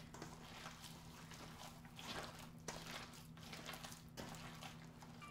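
Faint, irregular wet squishing of raw ground-meat meatloaf mixture with soaked bread rolls and eggs, kneaded by hand in a metal bowl, over a low steady hum.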